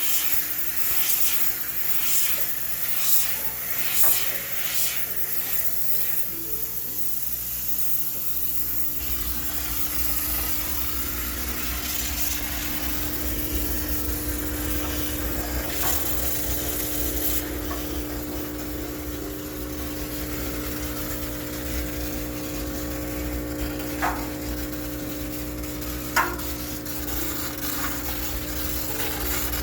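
A steam cleaner hissing and rubbing over a laundromat washing machine, with a few knocks in the first few seconds. A steady low hum sets in about a third of the way through.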